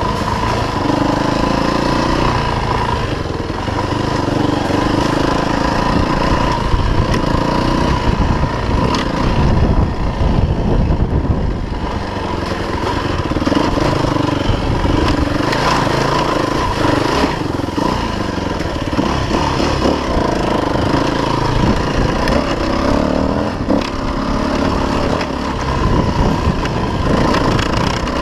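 Off-road motorcycle engine running as the bike is ridden, its revs rising and falling over and over, heard close up from a camera mounted on the bike.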